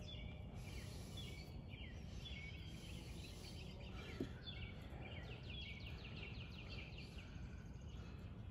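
Faint birdsong: many short falling chirps and a quick trill, over a low steady background hum. A small knock comes about four seconds in.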